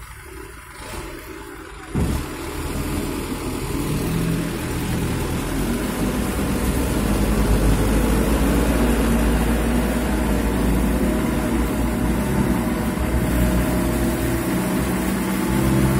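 Light cargo truck's engine pulling under load as it drives along a rutted mud road. The engine comes in sharply about two seconds in and grows louder as the truck approaches and passes close by.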